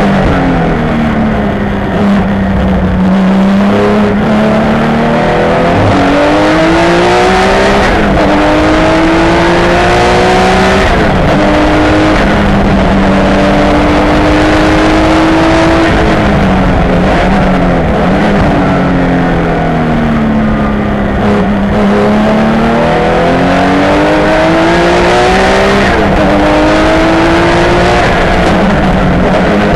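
Porsche 962 race car's turbocharged flat-six at full race pace, heard from inside the cockpit: the engine note climbs as the car accelerates and drops again as it slows for corners, several times over.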